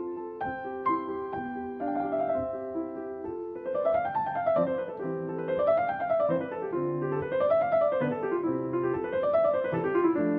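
Background piano music: struck notes and chords at first, then from about three and a half seconds in, repeated rising and falling runs of notes.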